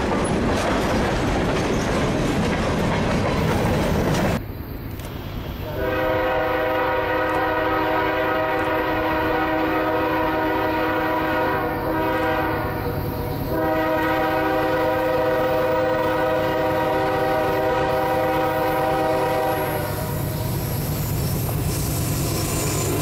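Freight cars rolling past with the clack of wheels over rail joints. Then a CSX diesel locomotive's multi-chime air horn sounds two long blasts with a short gap between them as the train approaches, and the deep rumble of the locomotive grows near the end as it draws alongside.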